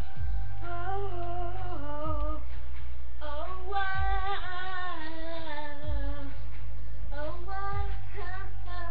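A young female voice singing a melody over music with a steady low bass and a beat roughly every two seconds.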